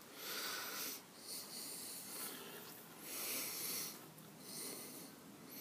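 Soft breathing close to the microphone: four slow, airy breaths, each about a second long.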